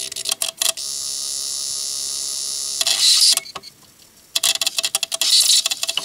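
Yamaha DVD-E600 DVD player's disc drive mechanism trying and failing to read: a few clicks, a steady high whine for about two seconds, a short louder burst, then a run of rapid rattling clicks near the end. The drive cannot spin up or read the disc despite a newly fitted laser pickup.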